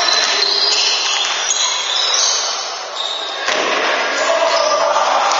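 Handball play in an echoing sports hall: shoes squeaking on the court floor, the ball bouncing and players calling out, with one sharp smack about three and a half seconds in.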